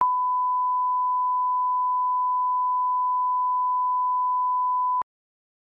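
Broadcast line-up test tone played with SMPTE colour bars: one steady, unwavering tone that cuts off abruptly about five seconds in.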